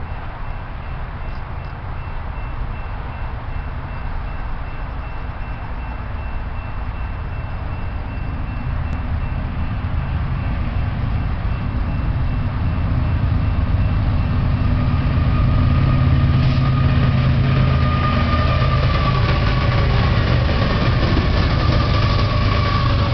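BNSF diesel locomotives hauling an intermodal freight train, approaching and passing close by. Their low engine rumble grows steadily louder and stays loudest over the last several seconds.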